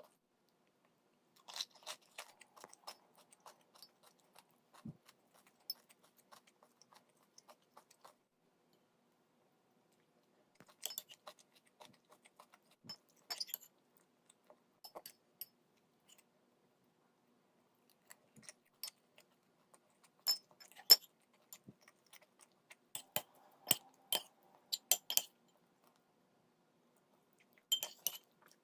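Intermittent small clinks, taps and crunches of eating and handling dishes and utensils, with a few short silent pauses.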